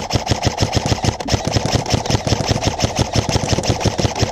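Airsoft electric gun firing a long full-auto burst: a rapid, even rattle of shots that stops suddenly at the end.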